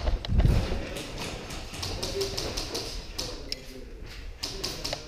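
Short bursts of airsoft gunfire, each a quick run of sharp clicks, coming about two seconds in, again around three and a half seconds, and more densely near the end.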